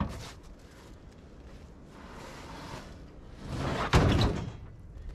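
Large steel sheet-metal panel scraping as it is slid out of a pickup truck bed, building to a loud metallic clang with a brief ring about four seconds in.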